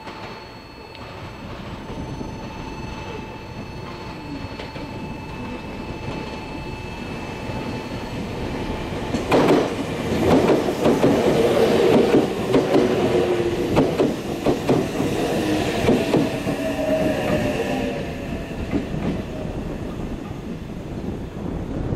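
A train passing close by: it grows louder over the first several seconds, then from about nine seconds in the wheels clatter loudly over rail joints, with a whining tone gliding in pitch through the second half.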